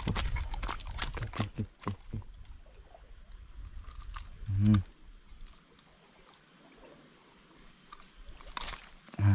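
Metal fishing pliers and treble hooks clicking and rattling against a hard-bait lure while a hooked hampala is unhooked, with quick clicks and knocks over the first couple of seconds. A short low grunt sounds about halfway through and again at the very end, over a steady thin high whine.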